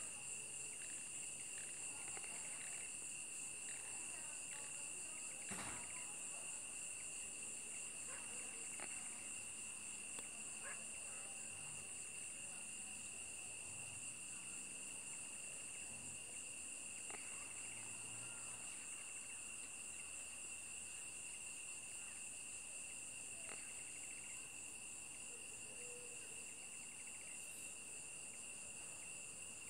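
Insects trilling steadily in a chorus of high, continuous tones, with a few faint clicks.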